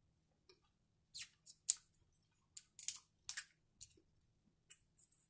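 Close-miked eating of snow crab: a string of short, crisp smacks and clicks from chewing the crab meat and pulling it from the cracked leg shell.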